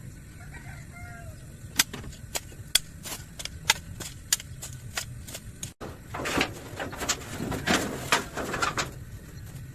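A hand tool striking repeatedly in garden clearing work: a run of sharp strikes, about three a second, then a few seconds of rustling, swishing brush noise with heavier strokes.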